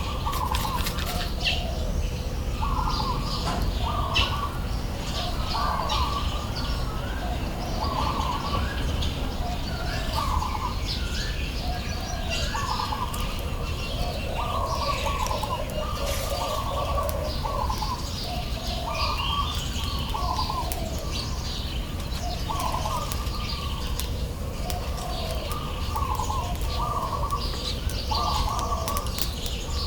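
Birds calling throughout: short notes repeated over and over, often in pairs, with higher chirps mixed in, over a steady low rumble.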